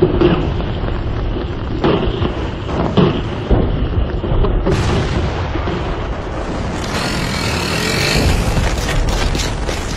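Heavy artillery and mortar barrage: shells whistling overhead over a continuous rumble of gunfire, with sharp bursts about two, three and three and a half seconds in. The din grows harsher in the second half.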